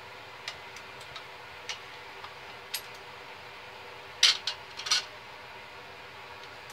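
Light metal-on-metal clinks and taps of blacksmith's tongs, hammer and hot steel against an anvil: a few scattered small clicks, then a louder cluster of four or five short clanks about four seconds in.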